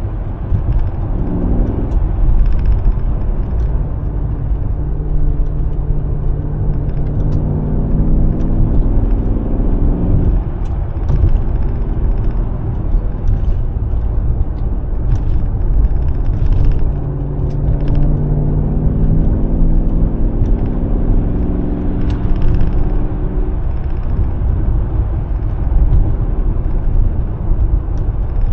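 Mercedes-AMG S63's V8 engine pulling the car along with deep road rumble, its note climbing in pitch in long pulls under acceleration, easing off about ten seconds in and climbing again in the second half.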